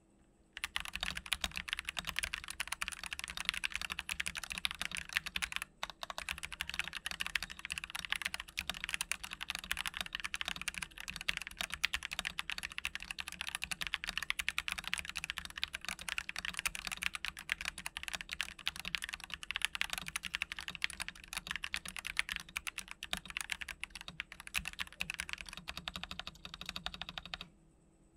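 Typing test on a RUF Serra68 65% mechanical keyboard with Gateron Yellow linear switches, PBT cherry-profile keycaps and rubber damping between plate and PCB: a continuous stream of keystroke clacks, with a short pause about six seconds in.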